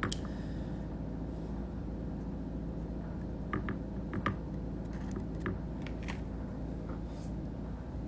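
Steady low background hum with a few light clicks and ticks of a metal dental hand instrument working composite against a model tooth, a small cluster of them around the middle.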